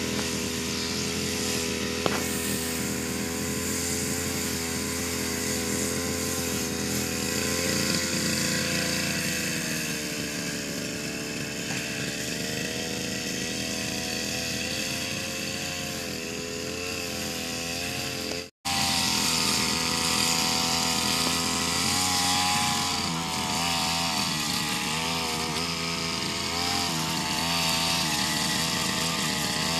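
Backpack brush cutter engine running while its trimmer head cuts grass, its pitch wavering up and down. The sound cuts out for an instant about two-thirds of the way through.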